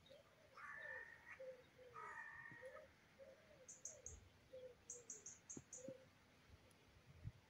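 Faint birdsong: a string of short, low whistled notes, joined about four and five seconds in by quick runs of three to five high chirps.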